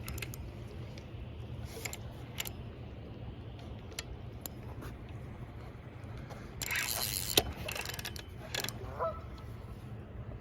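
Fishing reel being worked during a carp fight, with scattered ticking clicks over a steady low river rumble. About seven seconds in there is a louder rustling stretch ending in a sharp click, and bird calls come near the end.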